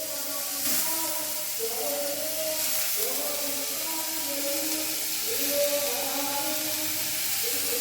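Chopped onions, garlic and ginger sizzling in a little oil in a pan, a steady hiss, with a slow melody of held notes playing over it.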